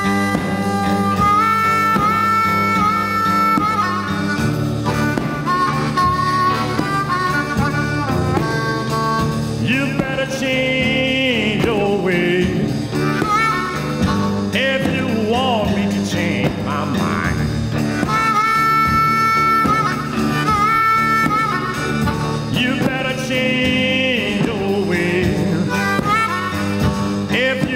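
Blues record playing in mono from vinyl: a harmonica-led instrumental passage over a backing band, with bent, wavering notes from about ten seconds in.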